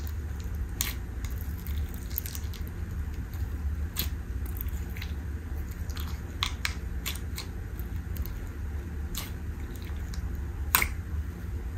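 Clear slime with sequins and flower charms being pressed and poked by fingers in a plastic tub, giving irregular sticky pops and clicks, the loudest near the end, over a steady low hum.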